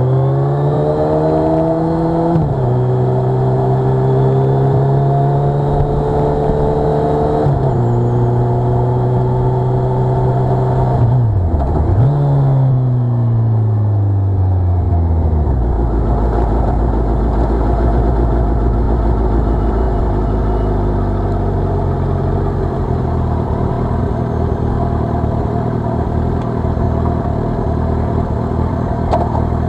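Suzuki Hayabusa's inline-four engine heard from on board while riding, with wind rushing past. It revs up and shifts up twice in the first eight seconds, then holds steady. About halfway through its revs fall away, and it runs at low revs for the rest.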